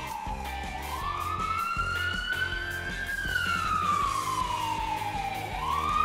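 Emergency-vehicle siren wailing, its pitch gliding slowly up for about two and a half seconds, down for about two and a half seconds, then starting up again near the end, over background music with a steady low beat.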